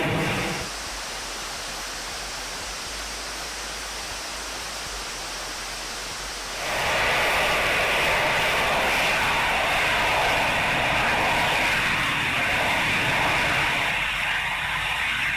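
Rocket engine of Armadillo Aerospace's Scorpius lander firing as the craft hovers and descends to land: a steady rushing noise. It is quieter at first and jumps louder about six and a half seconds in.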